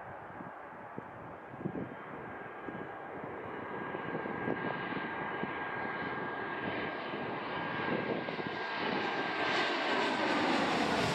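Twin-engine business jet on final approach with its landing gear down, its engine noise growing steadily louder as it closes in and passes low overhead. A steady high whine sits over a rushing sound that is loudest near the end.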